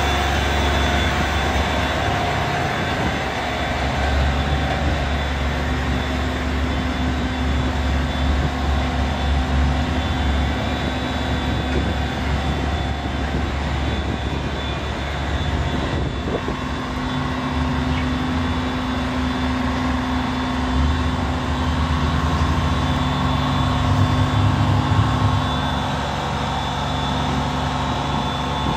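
Bulk cement tanker discharging by air: the truck's diesel engine running steadily while it drives the compressor that blows the cement out through the discharge hose, a continuous low mechanical drone with a steady high whine over it.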